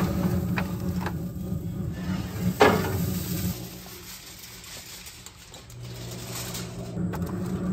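Aluminium foil pan and a sheet of foil being handled: a few light knocks and one sharp clatter about two and a half seconds in, over a low steady rumble that drops away about halfway through.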